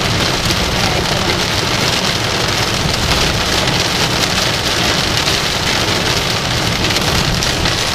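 Heavy rain drumming steadily on a vehicle's roof and windshield, heard from inside the cabin, with the engine's low hum underneath.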